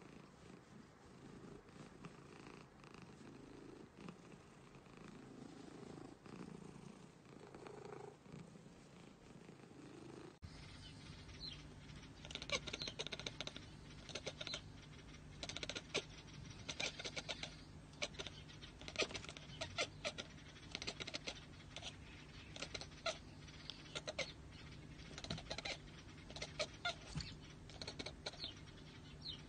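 A domestic cat purring softly while it is scratched under the chin. About ten seconds in the sound changes abruptly to a rapid, irregular run of short, sharp clicks and chirps over a low steady hum.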